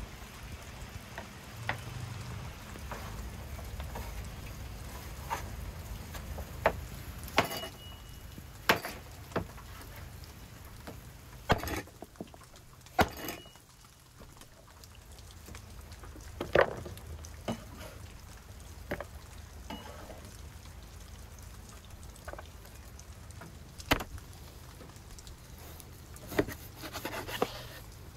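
A cleaver knocking sharply on a wooden cutting board at irregular intervals as raw beef is chopped into pieces, over steady low background noise.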